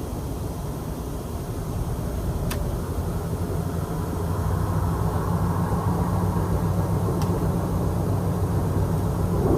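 A steady low rumbling drone, of the kind reported as a mysterious sound from the sky, growing somewhat louder about halfway through, with two faint ticks.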